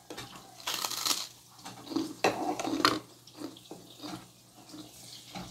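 Water from a tap splashing into a sink in short, irregular bursts, with a few sharp knocks.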